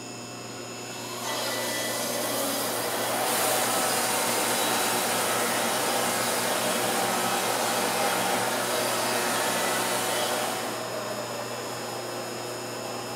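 Wood-Mizer LT50 band sawmill sawing through a long oak log, a steady hissing whir that builds about a second in, grows louder a few seconds in and eases off near the end.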